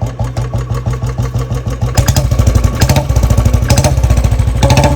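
Royal Enfield Bullet 350's single-cylinder engine running with an even thump, louder and quicker from about two seconds in as the throttle is opened. The owner is checking it for a tick-tick noise from the engine, which he finds only a little reduced after a rubber part was fitted.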